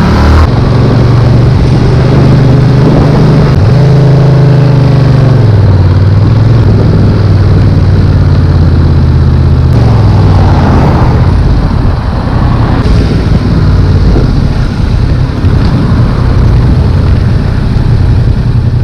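Yamaha XSR700's 689 cc parallel-twin engine running loud, its steady note stepping down in pitch a few times (about half a second in, around five seconds in and around ten seconds in), over a heavy rush of noise.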